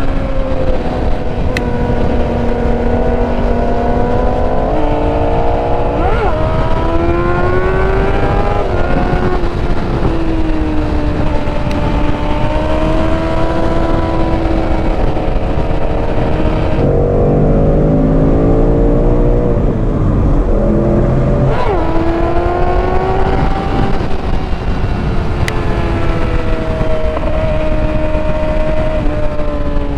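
Yamaha YZF-R6's inline-four engine running hard at riding speed, its pitch climbing and dropping several times as the throttle and gears change, over a steady rush of wind.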